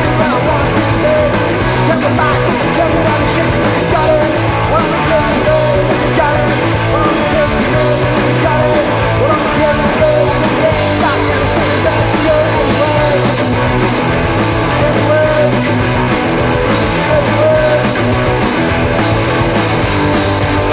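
Punk rock'n'roll band recording playing loud and steady, with electric guitar and bass.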